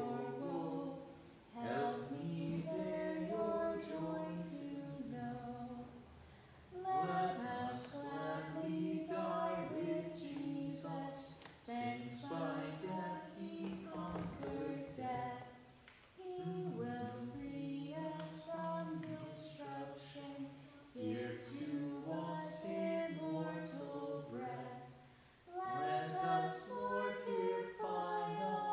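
A man singing a hymn unaccompanied, in phrases with short breaks for breath between them.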